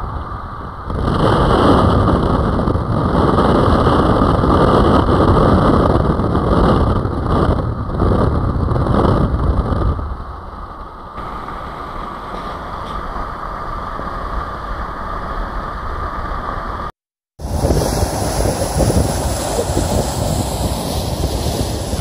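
Steady wind and road rush from a camera mounted on the outside of a moving vehicle, louder for most of the first half. Near the end the sound drops out for a moment and changes to wind buffeting the microphone over surf washing across rocks.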